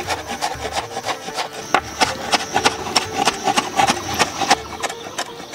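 Steel cleaver chopping red onion finely on a wooden cutting board: quick, sharp knocks of the blade on the wood, about five a second.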